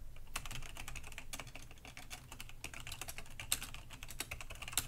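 Rapid typing on a computer keyboard, a dense run of key clicks several per second with a few louder keystrokes.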